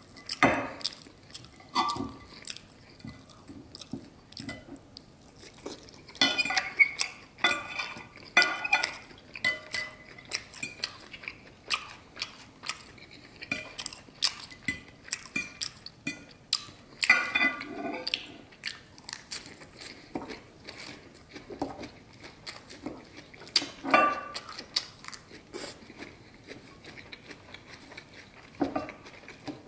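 Steak knife and fork clicking and scraping on a ceramic dinner plate as steak is cut and eaten, with chewing between. The clicks come irregularly, with a few louder clusters of squeaky scraping.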